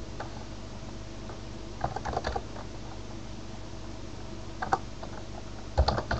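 Computer keyboard keys being typed in short runs of a few keystrokes, around two seconds in, near five seconds and again at the end, over a faint steady hum.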